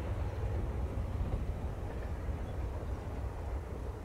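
Izuhakone Railway 3000 series electric train rumbling away into the distance, a low steady rumble slowly fading.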